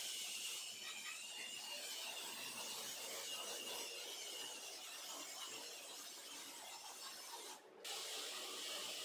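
Small wheeled robot driving across a tiled floor: a steady, gritty whir of its small electric drive motors and wheels rolling on the tiles, with a faint high whine early on. The sound drops out for a moment near the end, then resumes.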